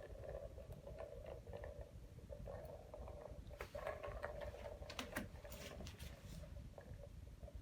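Ball rolling around the track of a plastic cat toy, a faint steady rolling hum that stops and starts again, with a few sharp clicks and taps about halfway through as the ball is knocked along.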